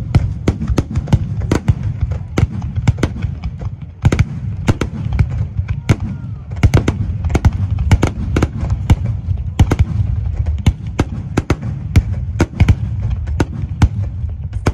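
Fireworks barrage: aerial shells bursting in quick succession, several sharp bangs a second over a continuous low rumble.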